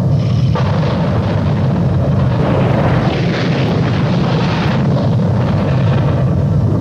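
Steady low rumble of a helicopter's engine and rotor, with wind buffeting the microphone in gusts.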